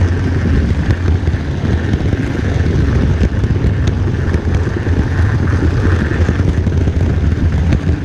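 HO-scale model train rolling along the track, heard from a camera riding on the train: a steady loud rumble with a few faint clicks.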